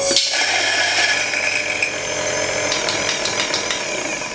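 Latina 600N electric burr coffee grinder running, grinding espresso beans fine at grind setting 1.5. A loud, steady motor whine.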